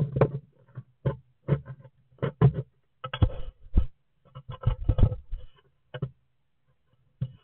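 A cat on a wooden nest box scratching and knocking at it, giving a run of short scrapes and knocks about two or three a second, with pauses between clusters.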